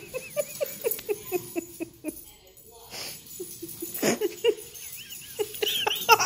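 Cairn terrier puppy and miniature dachshund playing chase. There are quick runs of short vocal sounds, about five a second, with a short lull a couple of seconds in and high squeals near the end.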